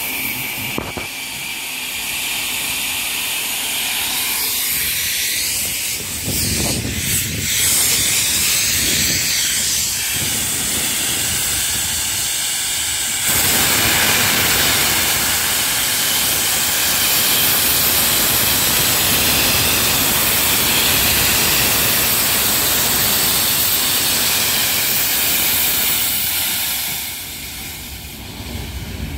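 LMS Jubilee class 4-6-0 steam locomotive No. 45596 Bahamas venting steam in a loud, steady hiss. The hiss grows fuller and louder about halfway through and eases off near the end.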